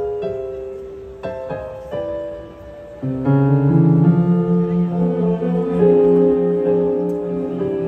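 High-school symphony orchestra playing: a few soft single notes that ring out and fade, then about three seconds in the strings and fuller orchestra come in with sustained chords over a low bass line.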